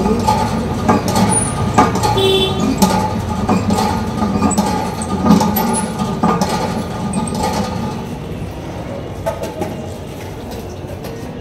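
Motor vehicle running on the road with steady traffic and road noise, scattered knocks, and a brief high tone about two seconds in; it grows quieter in the last few seconds.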